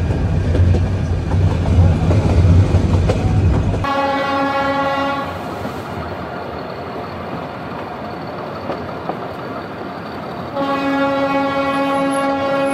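Nilgiri Mountain Railway toy train running, a heavy low rumble of the ride. About four seconds in the sound changes abruptly and the train's horn sounds one steady note for about a second and a half, then sounds again, held, near the end.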